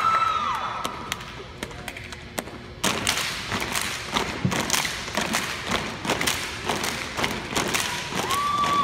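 Step team stepping: a few scattered claps and stomps, then about three seconds in a fast, dense run of stomps and hand claps from the whole line. Crowd screaming fades out at the start and rises again near the end.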